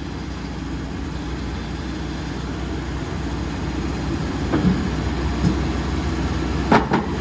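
Tracked excavator's diesel engine running as its steel tracks climb onto a low-loader trailer deck, a steady low rumble with a few sharp knocks about four and a half seconds in and again near the end.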